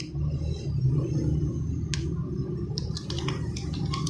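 Fingers handling an opened Tecno Spark Go phone and peeling away a paper layer from it: soft rustling over a steady low hum, with one sharp click about two seconds in and a few light clicks near the end.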